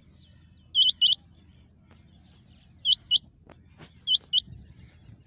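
Rain quail calling: three bursts of sharp, high double notes, 'whit-whit'. A faint low rumble and a few faint clicks lie beneath.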